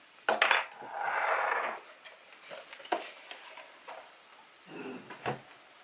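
Handling noise from small hard objects being moved: a couple of sharp clicks, a scraping sound lasting about a second just after the start, another click about three seconds in, and a soft knock near the end.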